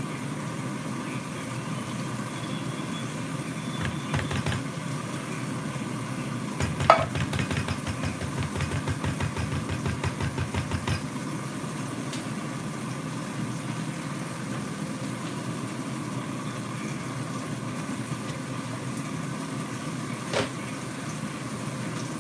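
A metal spoon scraping and knocking inside a metal can while scooping out thick gravy: a sharp clink, then a quick run of knocks, about five a second, for a few seconds in the middle, and one more clink near the end. A steady low mechanical hum runs underneath.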